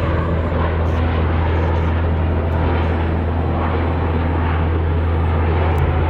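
V-22 Osprey tiltrotor flying overhead: a steady low drone from its proprotors and engines.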